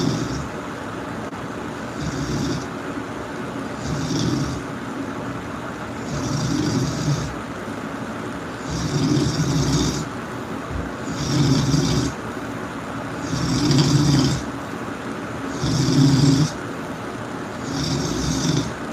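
A sleeping person snoring loudly and rhythmically, one snore about every two seconds, around eight in all.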